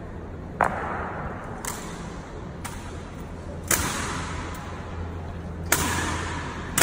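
Honor guards' rifle drill: a series of sharp strikes, the loudest about every two seconds with fainter ones between, each ringing on in a long echo off the hall's stone walls and floor.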